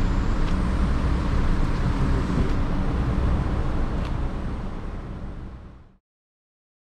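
A steady engine rumble mixed with noise, fading out over the last second or so and then cutting to silence.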